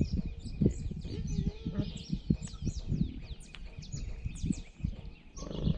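Many small birds chirping in a dawn chorus: quick high notes that slide downward, several each second. Under them are irregular low bumps and rustles.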